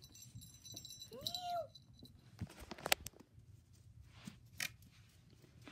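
A short meow, rising then falling in pitch, about a second in. Then come a few light knocks and soft rustles as plush toys are handled on carpet.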